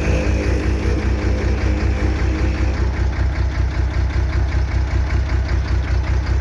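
Truck engine running with the Soosan crane's hydraulic pump engaged: a steady hum with a low pulsing beat, about seven a second. It is the hum that appears when the crane is lowered or slewed, which the owner links to air getting into the hydraulic oil, which foams, since oil was added.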